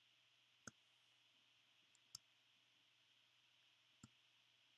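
Three faint, isolated computer mouse clicks about a second and a half apart, over near silence.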